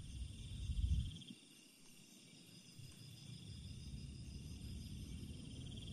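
Crickets trilling steadily in a night-time outdoor ambience. A low rumble in the first second drops away, leaving the insect chorus over a faint low hum.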